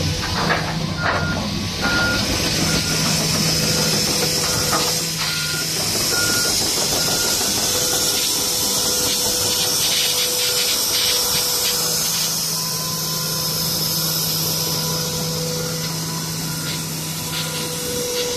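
Komatsu PC450-8R crawler excavator's diesel engine running steadily under a high hiss, with short high-pitched warning beeps sounding on and off.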